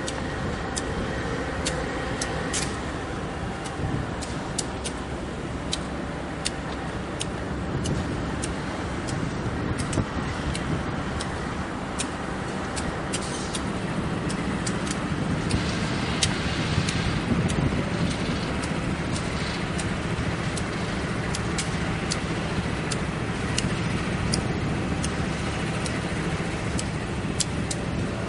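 GE diesel locomotives with V16 engines rumbling steadily at low power as they creep along at low speed, with many short sharp ticks throughout. The rumble swells briefly about halfway through.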